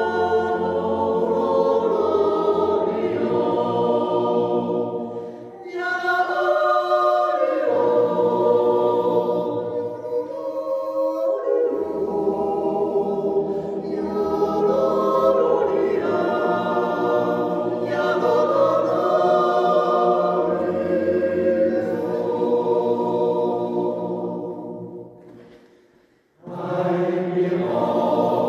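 Mixed Swiss yodel choir of men's and women's voices singing a Jodellied unaccompanied, in sustained close harmony. About 25 seconds in, a phrase fades away to a brief silence, then the choir comes back in.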